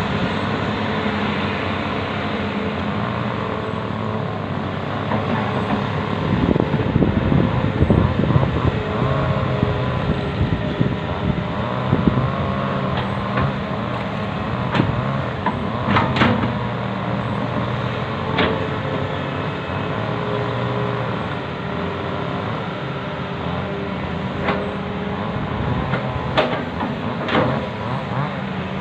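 Hitachi hydraulic excavator's diesel engine running steadily under load while it swings the boom and digs with its bucket, the pitch shifting as the hydraulics work. A few sharp knocks of metal on metal stand out in the second half.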